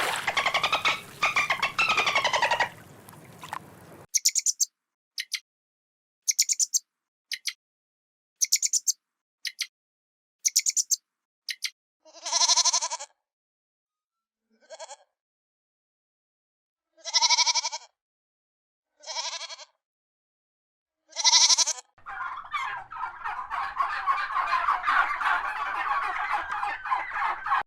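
Short, very high-pitched chirps about once a second, then a goat bleating five times in separate calls, then a steady rough noise near the end.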